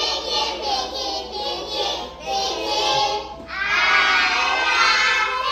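A group of young children's voices together in unison, loud and dense, growing louder and higher about two thirds of the way in.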